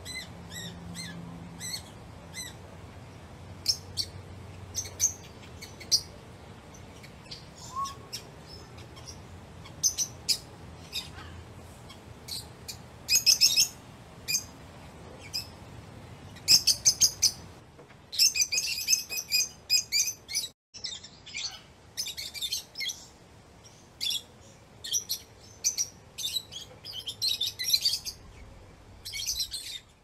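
Lovebirds chirping: rapid, shrill chirps in short bursts, sparse at first and growing busier and louder through the second half.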